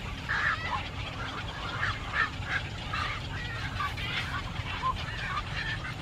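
Birds giving a rapid run of short calls, several a second, over a steady low rumble.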